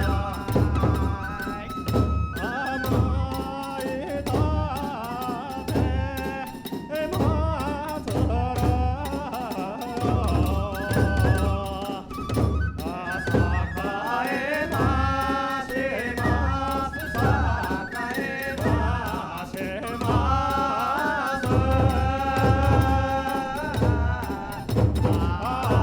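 Kagura hayashi ensemble playing: a large drum beating steadily about twice a second, with ringing hand cymbals and a wavering melody line above.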